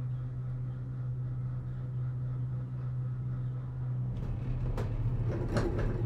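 Gondola lift station machinery running with a steady low hum. From about four seconds in, a rattling with a few sharp knocks, loudest near the end.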